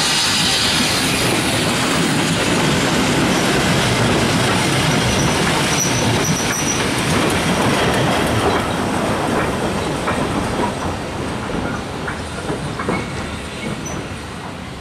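Industrial saddle-tank steam locomotive passing slowly with a freight train: steam hisses at first, then the wagon wheels click and rattle over the rail joints. The sound fades away over the last few seconds.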